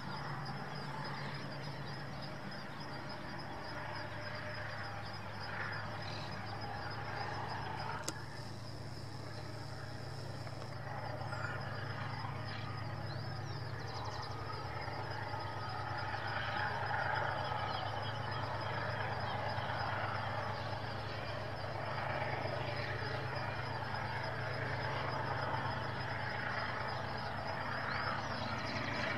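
A GE diesel-electric freight locomotive running under power as it passes, with a steady low engine drone, and the rumble of its freight cars rolling on the rails following behind. A thin steady high tone and a few faint bird chirps sit over it.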